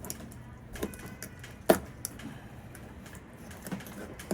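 Knife cutting through a fish behind the gills to take the head off, heard as a few sharp knocks, the loudest a little under two seconds in.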